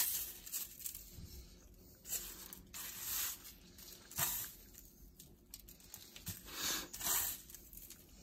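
Fish being pressed and turned in a dry breadcrumb coating on a paper plate: scratchy rustling of crumbs and fingers against the plate, in short irregular bursts.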